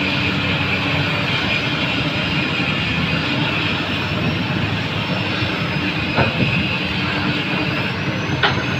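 Komatsu PC200 excavator's diesel engine running steadily under working load, with two short knocks about six seconds in and near the end.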